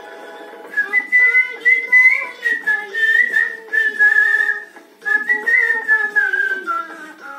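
A man whistling a film-song melody by mouth in a clear, high tune. The whistled line starts about a second in, breaks off briefly around five seconds, then picks up again.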